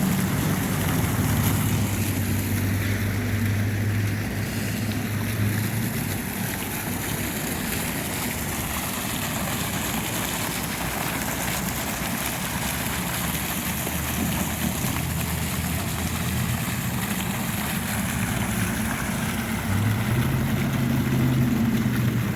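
Steady traffic noise: a vehicle engine's low hum over a wash of road noise, the hum strongest near the start and again near the end.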